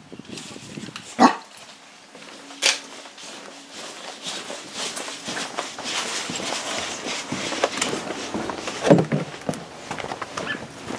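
Large dog barking: one bark about a second in and two quick barks near the end, with shuffling and footstep noise in between.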